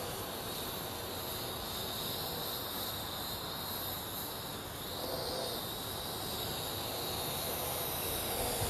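Parrot AR.Drone quadcopter's rotors buzzing in flight, a steady high whine held at one pitch, growing slightly louder near the end.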